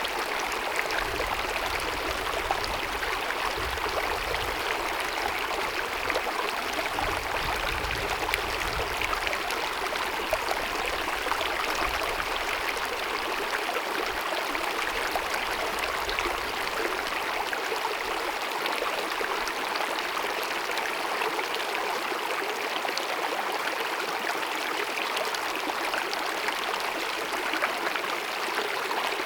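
Small glacier-fed mountain meadow stream babbling and cascading over rocks, a steady rush of running water.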